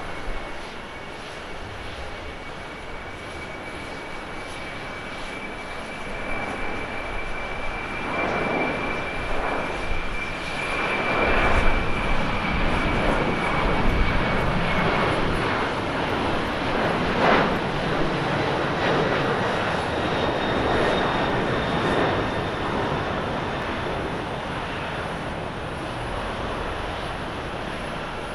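Boeing 767-300ER's twin turbofan engines at takeoff thrust. A steady high whine sits over a rushing roar that builds as the jet rolls down the runway and is loudest around lift-off, about halfway through. The roar then slowly fades as the plane climbs away.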